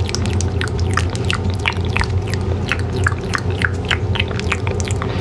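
Rapid, irregular soft clicks made close to a sensitive microphone, over a steady low hum.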